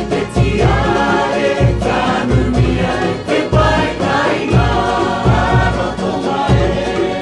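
Cook Islands song sung by a group of voices in harmony, with ukulele strumming and a steady, pulsing bass beat.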